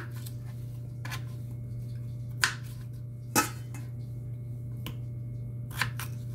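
Kitchen knife cutting peeled potatoes on a plastic cutting board: several separate knocks of the blade striking the board, the loudest about halfway through, over a steady low hum.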